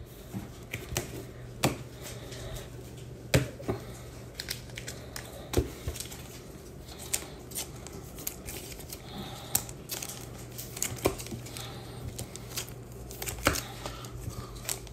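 Trading cards being slid into soft plastic sleeves and rigid plastic toploaders: irregular small plastic clicks, taps and rustling, several a second and uneven in loudness.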